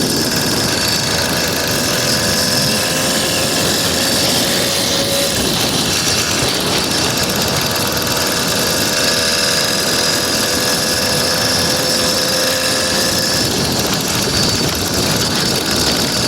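100cc two-stroke motorized bicycle engine running steadily under way, its pitch drifting only slightly.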